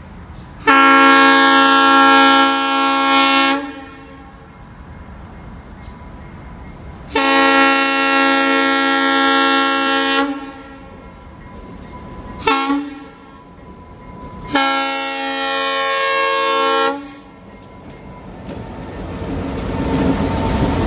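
Diesel locomotive's air horn sounding the grade-crossing signal, several tones at once: two long blasts, a short one, then a final long one. Near the end the rumble of the locomotives and their wheels on the rails grows louder as the train reaches the crossing.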